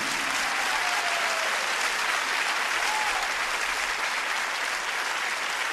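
Theatre audience applauding, a steady, even clapping that neither builds nor fades.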